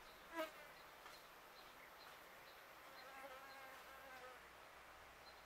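A flying insect buzzing close past the microphone: a brief, loud buzz about half a second in, then a fainter, longer buzz from about three to four seconds in.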